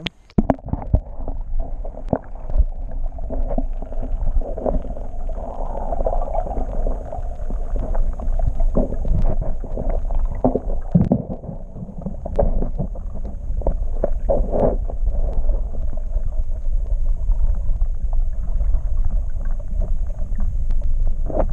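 Muffled underwater sound picked up by a submerged action camera: a steady low rumble of moving water against the housing, broken by scattered clicks and knocks.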